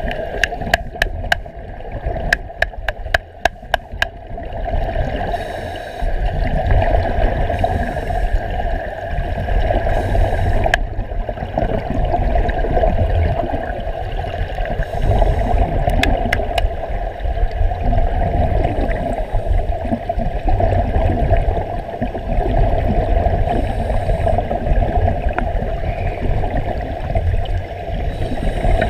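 Muffled underwater ambience as heard by a submerged camera: steady rushing and gurgling of water and air bubbles with a deep rumble. A quick run of sharp clicks comes in the first few seconds, and a few more about halfway through.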